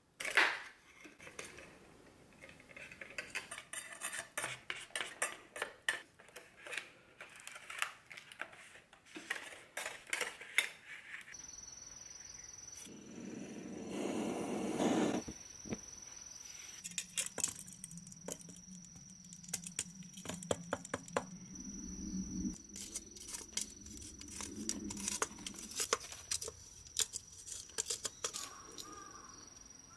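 A table knife clicking and scraping against scallop shells in a plastic tray as the shells are pried open. Partway through this gives way to a steady high insect drone, with a gas torch hissing for about two seconds.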